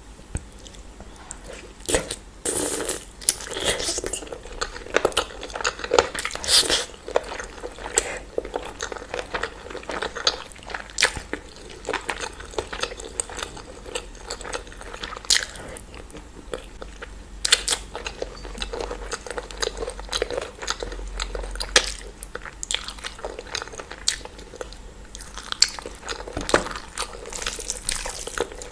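A person eating a chicken meal: irregular chewing and biting, with crunches and sharp clicks scattered throughout.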